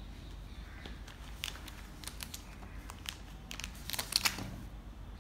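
Plastic packets and other bag contents crinkling and rustling as they are handled, with a few light knocks; the busiest handling comes about four seconds in.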